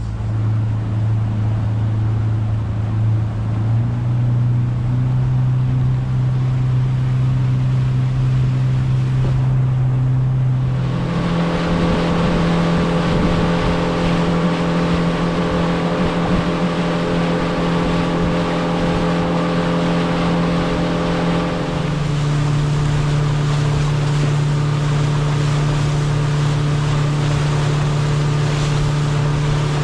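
A sailboat's auxiliary engine running steadily under way, a low even hum. Its pitch steps up about 3.5 s and 11 s in and drops a little about 22 s in. From about 11 s in, the rush of water from the boat's wake joins it.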